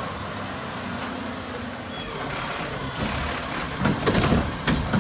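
Front-loader garbage truck driving up and stopping, its diesel engine running, with a high brake squeal lasting a few seconds. There are a few sharp knocks about four seconds in.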